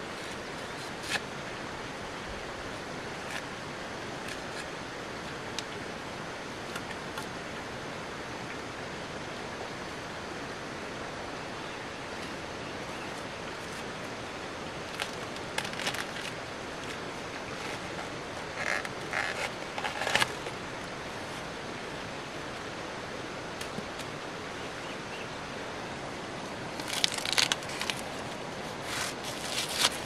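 A steady outdoor hiss with scattered short rustles and snaps: a few near the middle and a louder cluster near the end.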